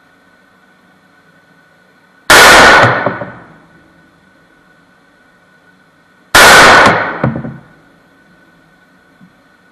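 Two loud single gunshots about four seconds apart, each followed by a reverberant tail that dies away over about a second.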